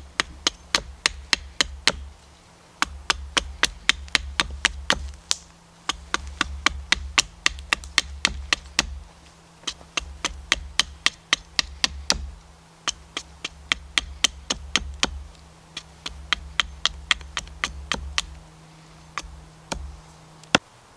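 Wooden stakes being hammered into the ground: rapid sharp knocks, about three to four a second, in bursts of a few seconds with short pauses between.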